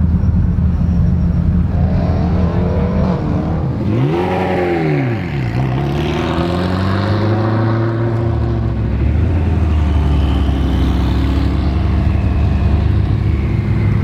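Ferrari F40 LM's twin-turbo V8 idling steadily, then revved once, rising and falling in pitch about four seconds in, before running at low revs as the car moves off, with a drop in pitch about eight and a half seconds in.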